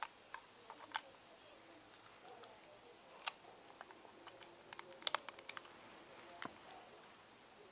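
Scattered light clicks and taps of hands handling a smartphone, its battery and the box contents, with a quick cluster of clicks about five seconds in, over a faint steady high whine.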